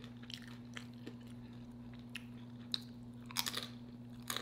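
Close-miked chewing of crunchy food, with scattered crisp crunches and a short run of louder ones about three and a half seconds in, over a steady low hum.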